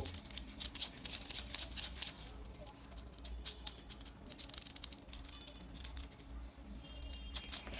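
Scattered faint clicks and taps, irregular and quick, over a low steady hum, with two brief faint high tones about five and seven seconds in.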